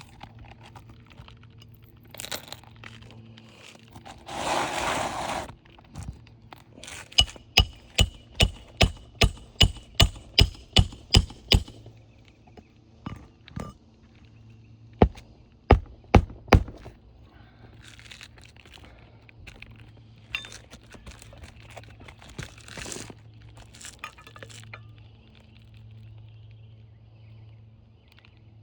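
Hammer driving roofing nails flush into asphalt shingles, finishing nails that a roof snake left standing about a quarter inch proud. A steady run of about a dozen blows, roughly two or three a second, comes several seconds in, and a few more single blows follow a few seconds later. Lighter clicks and scrapes come after.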